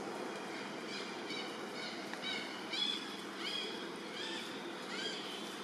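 A quick series of about ten short, high-pitched chirping animal calls, some dipping in pitch, over a steady background hiss.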